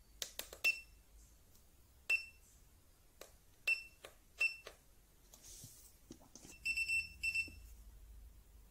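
Short high electronic beeps from a cheap battery spot welder's control box as its setting is stepped down: four single beeps spread over the first few seconds, then a quick run of about six beeps near the end, with a few faint clicks between.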